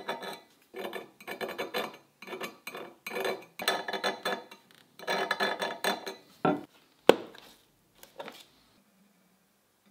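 Small hardness-test file scraped back and forth across the steel edge of a cleaver blade in repeated short strokes, testing the steel's hardness. Near seven seconds in comes a knock and a sharp click as the file set's hard case is handled.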